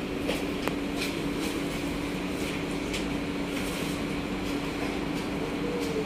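Kawasaki–CRRC Sifang C151A metro train standing at a platform with its doors open, its onboard equipment giving a steady hum, with a few faint footsteps of passengers.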